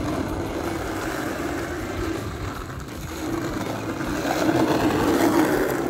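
Skateboard wheels rolling over rough asphalt, a steady rumble that grows louder about four seconds in as the board comes closer.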